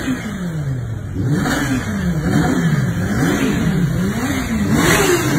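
Kawasaki Ninja H2's supercharged inline-four engine blipped repeatedly on the stand, the revs rising and falling about once a second, five or six times.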